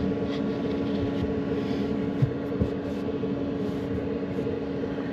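Autoterm Air 2D diesel air heater running at maximum heat: a steady blower hum with a constant tone. Two light knocks sound a little past the middle.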